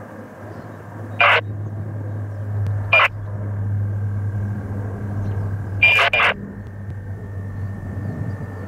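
Bombardier Dash 8 Q400 turboprop climbing out after takeoff: a steady low propeller drone with a faint high whine above it. Four short, sharp bursts cut in, about one second in, at three seconds, and twice close together near six seconds; these are the loudest sounds.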